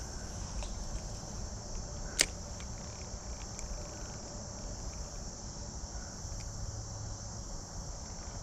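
Steady high-pitched trill of insects, with a low rumble underneath and one sharp click about two seconds in.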